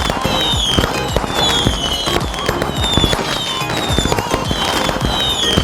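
Firecrackers going off in rapid, dense bangs, mixed with music that has a short falling high tone repeating about twice a second.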